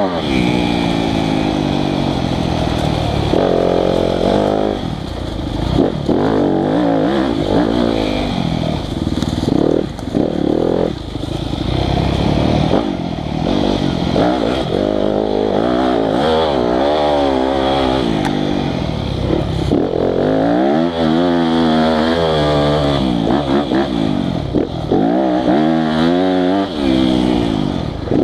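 Yamaha YZ250FX four-stroke single-cylinder dirt bike engine under hard riding, its pitch rising and falling again and again as the throttle is worked and the gears change.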